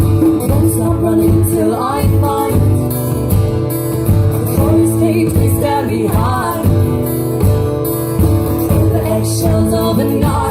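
Live band playing a song: a voice singing over guitar, with steady bass underneath.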